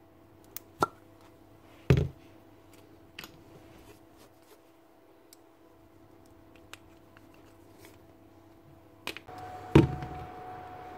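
A few sharp clicks and knocks of small metal drill parts being handled and set down on a workbench, the loudest near the end, over a faint steady hum. Near the end a higher-pitched hum with a hiss comes in.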